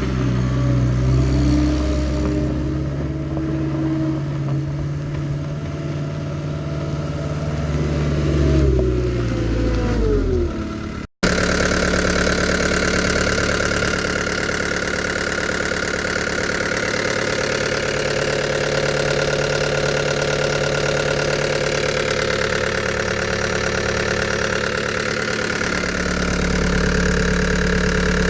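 Cat 262C skid steer's diesel engine running; about ten seconds in its pitch falls away as the engine slows. After an abrupt cut it runs steadily again.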